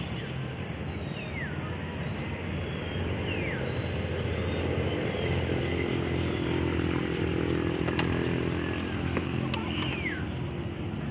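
A motor engine drones steadily, growing louder for a few seconds in the middle. A few short falling whistles sound over it.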